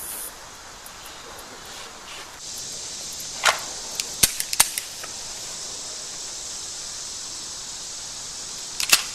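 Pistol shots: three in about a second, then two more close together near the end, over a steady hiss.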